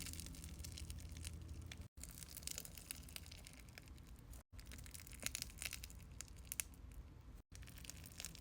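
Crunchy slime with popcorn charms being squeezed and poked by hand, giving faint, irregular crackling clicks.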